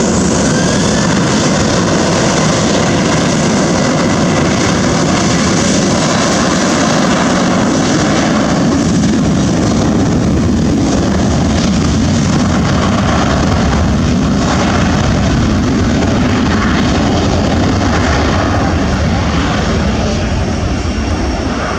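Boeing 737-800's CFM56-7B turbofan engines at takeoff thrust: loud, steady jet engine noise, easing a little near the end.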